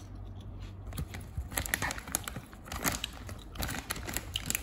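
Metallised plastic snack bag crinkling in irregular crackles as a hand reaches in among the cheese rings inside.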